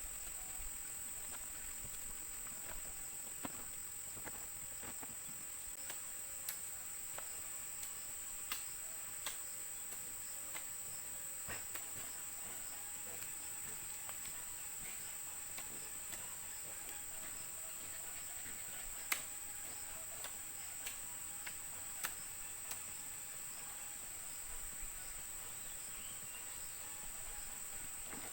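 Steady high-pitched insect chorus, a continuous shrill drone. Scattered sharp clicks and knocks come through it, the loudest about two-thirds of the way in.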